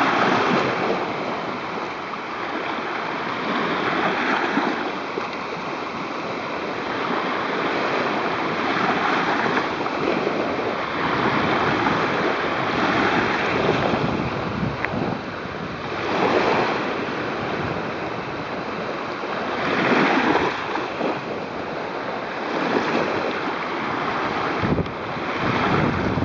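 Small waves washing in and out over sand in shallow water, swelling and easing every few seconds, with wind buffeting the microphone.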